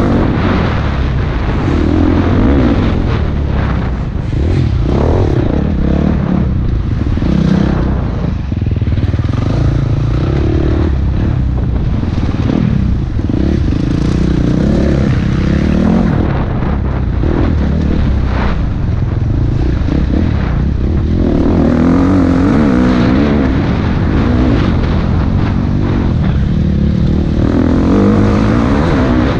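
Off-road motorcycle engine running hard, its pitch rising and falling as the rider accelerates, eases off and shifts along a dirt trail, heard from a helmet camera.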